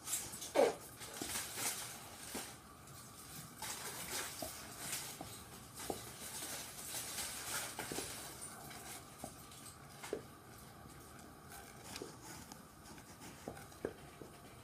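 Wooden spoon stirring thick flour porridge in an enamel saucepan: intermittent scraping and swishing against the bottom and sides, with scattered light knocks of the spoon on the pot. The porridge is thickening as it cooks.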